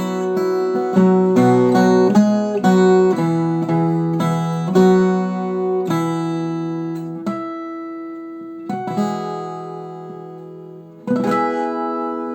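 Viola caipira, the Brazilian ten-string guitar, being picked: a melody of plucked notes over ringing lower strings, slowing after about six seconds into a few chords left to ring and fade, then a final strummed chord about eleven seconds in that rings out.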